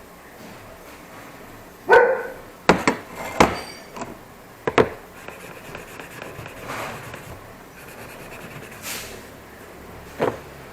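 A dog barks once about two seconds in, followed by a few sharp knocks over the next three seconds, and a second short bark comes near the end.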